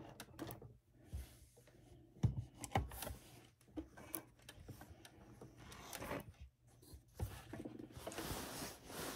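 Quiet handling of cotton quilt fabric at a sewing machine: rustling and shifting cloth with scattered light clicks and taps. The machine itself is not running.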